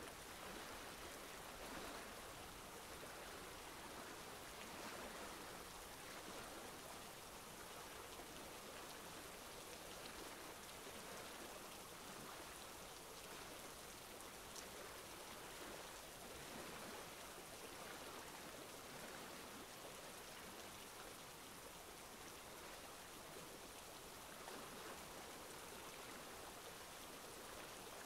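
Faint, steady hiss like rain or rushing water, with no pitch and only a few soft ticks.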